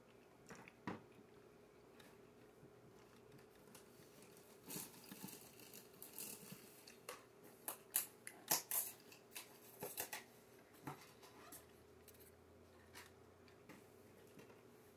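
Faint crinkling and clicking from a hand working at a pastry on a paper plate, a cluster of sharp little ticks from about four to eleven seconds in, over a faint steady hum.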